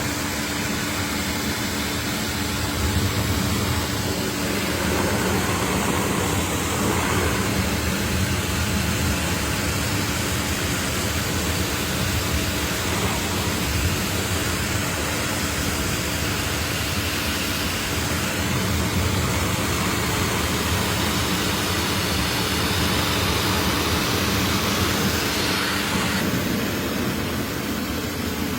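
Pressure washer running steadily, its motor humming under the hiss of the water spray.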